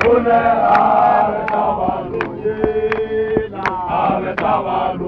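A group of men chanting and singing together, with a sharp handclap roughly every three-quarters of a second keeping the beat.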